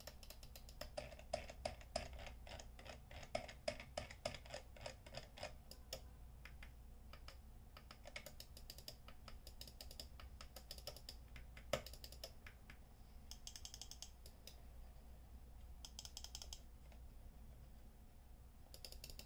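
Faint clicking of a SANWA thumb-operated trackball mouse: a quick run of clicks for the first several seconds, then scattered clicks with one louder click near the middle. Two short scratchy bursts come later.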